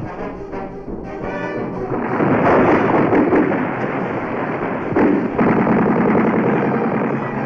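Film soundtrack of music mixed with rapid gunfire that swells into a dense, loud din about two seconds in.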